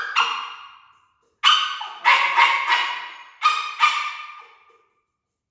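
Dog barking in three quick bursts, about seven sharp barks in all, each echoing briefly in the room. These are alert barks at someone heard downstairs in the garage.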